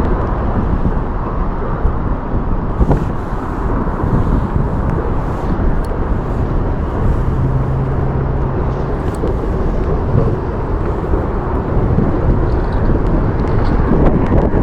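Wind buffeting the microphone, a steady low rumble, with a short low hum midway through.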